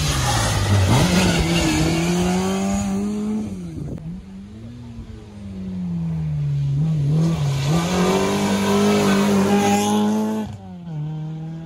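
Rally car engines revving hard as cars drive past on a wet road, the engine note rising and falling; one car passes near the start and another more loudly from about two-thirds in. Hiss of tyres on wet tarmac runs underneath, and the sound drops abruptly near the end.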